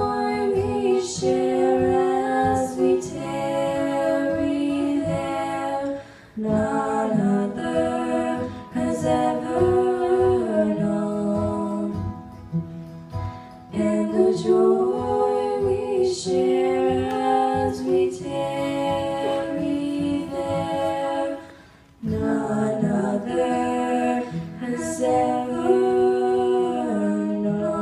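Two girls singing a slow hymn together into microphones, in long held phrases with short breaks for breath between them.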